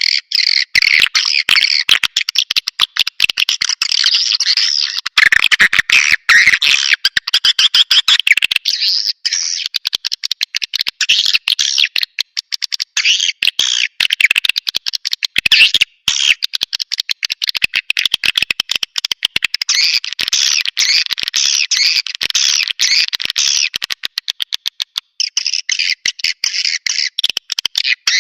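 Swiftlet-caller recording: dense, unbroken twittering of edible-nest swiftlets, many overlapping chirps mixed with fast clicks, the sound used to lure swiftlets into a nesting house.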